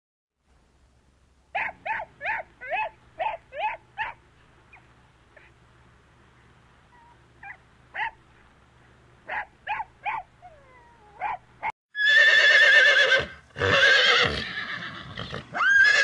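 A small dog gives a quick run of short high yips, then single yips now and then. About twelve seconds in, horses begin to whinny loudly, in several long, wavering neighs.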